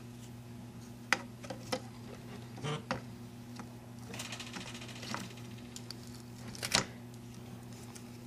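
Needle-nose pliers clicking and scraping against the plastic handle housing and plug prong of a Black & Decker electric hedge trimmer as the prong is worked loose. There are a few sharp clicks, a scratchy stretch in the middle and a double click near the end, over a steady low hum.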